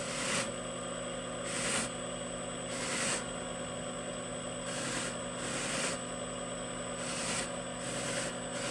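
Slow-turning sewn buffing wheel on a VFD-controlled electric motor running with a steady hum and a thin high whine, while a briar pipe bowl is pressed against it in short scrubbing passes, about one a second. Red buffing compound is cutting back the black top coat to bring out the red stain underneath.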